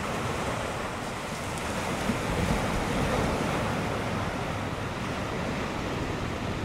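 Ocean surf washing ashore in a steady wash of noise, growing a little louder about two seconds in.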